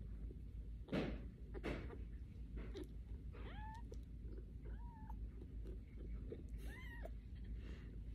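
A very young orange kitten mewing three times, each short high mew rising and then falling in pitch. Two brief rustling noises come about a second in, the loudest moment.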